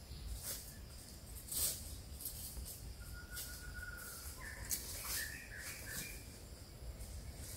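A bird gives a few short whistled calls about halfway through. Dry leaf litter rustles in short bursts throughout, loudest at about a second and a half in.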